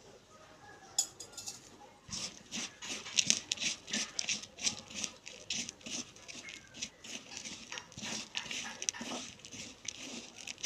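A hand kneading and squeezing crushed slate pencil pieces wetted with water in a bowl: a fast, gritty crunching and squishing that starts about two seconds in.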